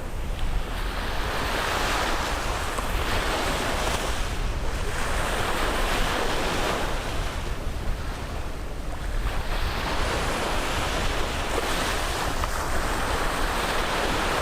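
Caribbean surf breaking and washing up a beach, swelling and falling back about four times, a few seconds apart.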